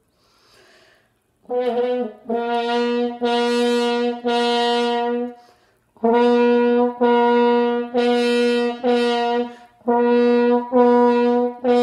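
French horn played hand-stopped, repeating short notes on one pitch in three groups with brief pauses between, going back and forth between fully stopped, with its buzzy tone, and partly stopped with a little air slipping past the hand in the bell. A short breath comes before the first note.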